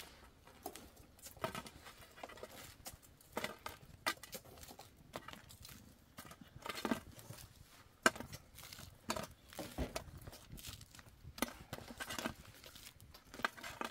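Crisp toasted flatbread being broken and torn into pieces by hand over a metal tray, giving irregular small crackles and taps.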